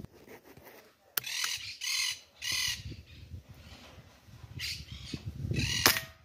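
Harsh, repeated squawking calls of monk parakeets, in short separate bursts. Near the end comes a sharp crack, the shot of a PR900S PCP air rifle, and it is the loudest sound here.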